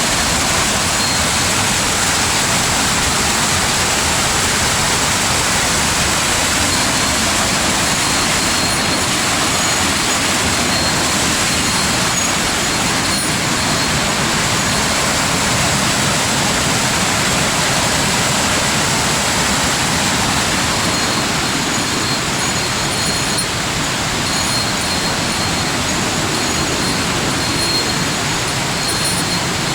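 Steady rush of falling water from a waterfall, an even, unbroken noise that eases slightly about two-thirds of the way through.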